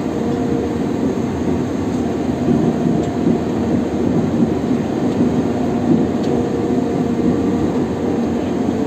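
Locomotive running through a rail tunnel, heard from inside its cab: a steady running rumble of wheels on track and machinery, with a faint steady hum over it.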